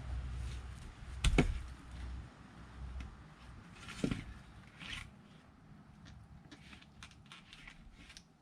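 An axe strikes firewood with one sharp, loud crack about a second in, followed by a lighter wooden knock about four seconds in, then faint scattered ticks and rustles.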